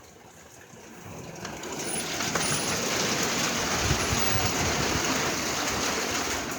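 Heavy rain pouring down, a steady dense hiss that swells from faint to loud over the first two seconds.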